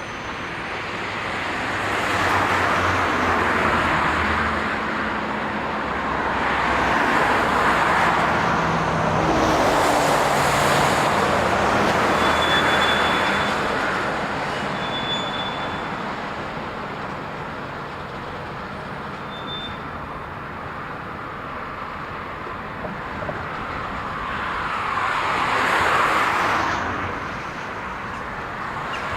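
Road traffic passing: several vehicles go by one after another, each a rushing sound that swells and fades, with a low engine hum underneath.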